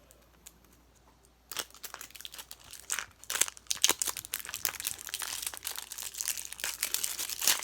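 Thin plastic wrapping crinkling and crackling as it is peeled off a toy capsule. It starts about a second and a half in and runs on as rapid, irregular crackles.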